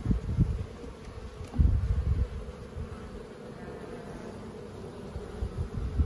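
A colony of honeybees buzzing steadily as a frame of comb covered in bees is lifted out of the hive. A few low rumbles break in, the loudest about a second and a half in.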